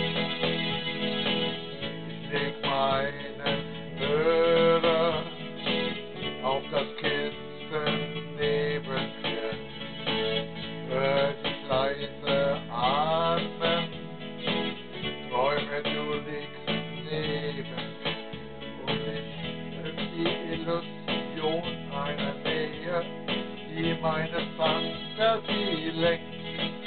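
Schlager music played on an electronic keyboard between sung verses: a melody line over the keyboard's automatic accompaniment, with a guitar-like backing and a regular beat.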